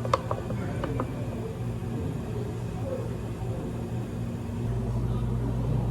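Steady low hum of cafe equipment, with a few light clicks and clinks in the first second; the deepest part of the hum stops and comes back on near the end.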